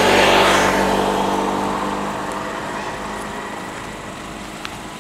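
A motor vehicle passes close by, its engine and tyre noise loudest at the start and then fading steadily away.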